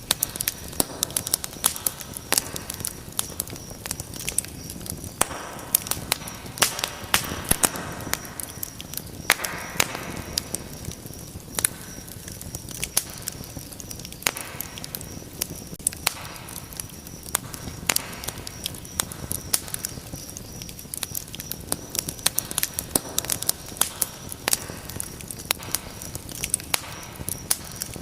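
Fire crackling in a fireplace: irregular sharp pops and snaps, several a second, over a soft rushing of flames that swells now and then.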